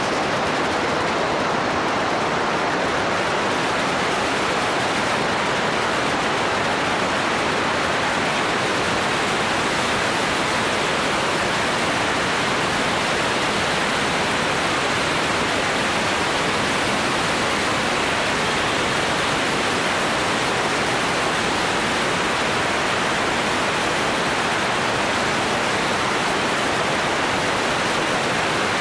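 Steady wind rush over the microphone of a camera mounted on a moving motorcycle: an even, unbroken hiss with no clear engine note.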